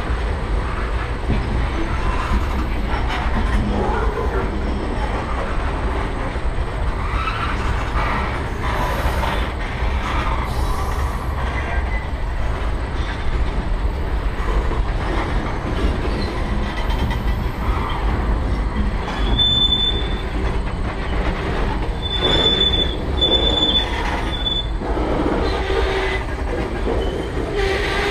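Freight train gondola cars rolling past close by, their wheels rumbling steadily over the rails. Several short, high-pitched wheel squeals come in the second half, most of them clustered near the end.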